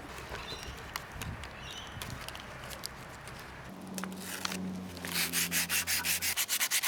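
Hand sanding a rusty engine part with sandpaper: quick, even back-and-forth strokes, about five a second, starting about five seconds in, after light handling clicks and rustling. A low hum sounds for a couple of seconds in the middle.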